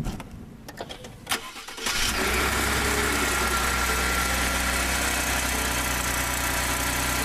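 A couple of clicks, then a 2015 Ford F-150's 2.7-litre EcoBoost twin-turbo V6 starts about two seconds in and settles into a steady idle. No pin rattle can be heard, now that the vibrating pin has been damped with thread locker.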